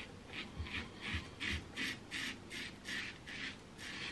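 PAA La Criatura slant double-edge safety razor with a Gillette 7 O'Clock blade scraping through lathered stubble on the neck and jaw in short, quick strokes, about three a second.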